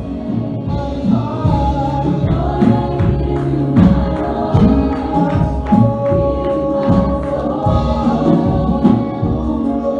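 Gospel music: a choir singing over instrumental accompaniment with percussion and a moving bass line.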